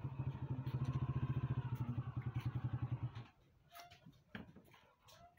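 A motorcycle engine running with a fast, even putter that cuts off abruptly about three seconds in, followed by a few faint clicks.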